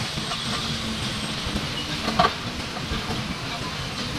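Diesel engines of several tracked excavators running with a steady drone, and a single sharp knock about two seconds in.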